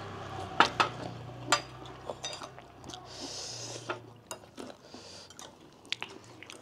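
A spoon clinking against a soup bowl while eating, a handful of sharp, scattered clinks, the loudest two close together a little after half a second in.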